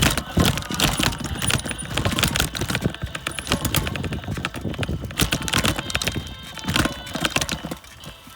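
Bicycle rattling over a rough dirt trail: a dense, irregular clatter of knocks from the frame and chain, easing off shortly before the end.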